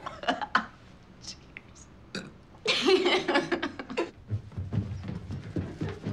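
A person belching once, about three seconds in, among faint scattered clicks and knocks.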